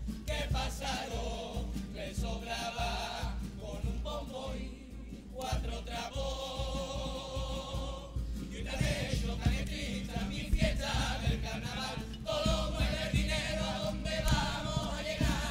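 Carnival comparsa of young singers singing together as a choir with guitar accompaniment, in phrases broken by short pauses about five and eight seconds in.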